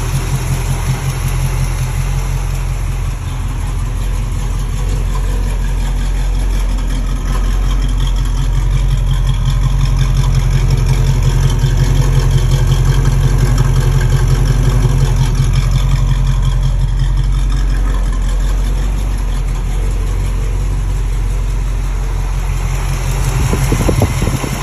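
1974 Chevrolet Nova's engine running steadily at idle, getting a little louder in the middle.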